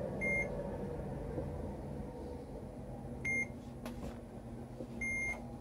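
ARB Sargon 4.0 electronic chess computer beeping: three short, high beeps a couple of seconds apart, with a single click between the second and the third.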